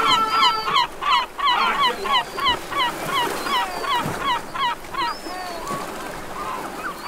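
Many short honking bird calls overlapping at different pitches, several a second, like a flock calling. A held note stops under a second in.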